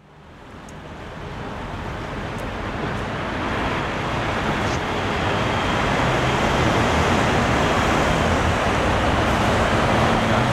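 Steady city street traffic noise, fading in from silence over the first few seconds.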